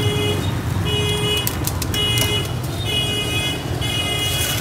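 A steady low traffic rumble with a high electronic beep repeating about once a second, each beep about half a second long. A few sharp knocks come about a second and a half in.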